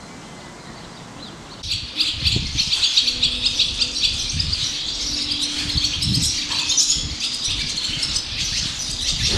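Barn swallows twittering and chattering rapidly in a stable, starting about a second and a half in, with soft low thumps mixed in.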